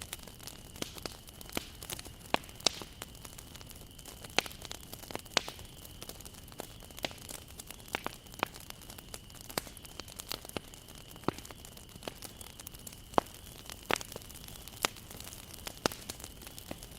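Wood fire crackling: irregular sharp pops and snaps, a few clearly louder than the rest, over a faint steady hiss.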